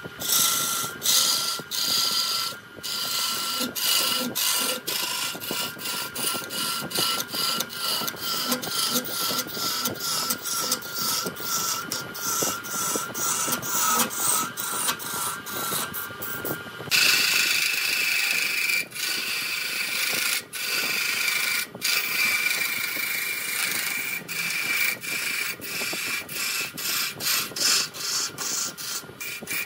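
Wood lathe running while a hand-held turning chisel scrapes and cuts the spinning wood: a steady, slightly wavering whine under many short scratching strokes. The whine suddenly shifts higher a little past halfway.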